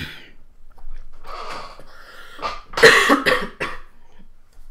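A person clearing their throat and then coughing several times in quick succession, the cluster of sharp coughs a little past the middle.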